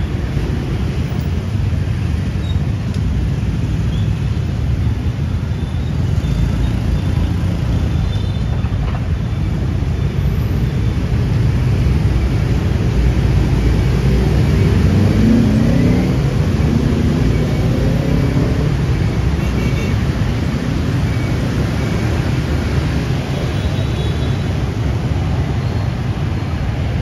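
Steady city street traffic, a continuous rumble of passing engines. About halfway through, one passing engine rises in pitch as it speeds up.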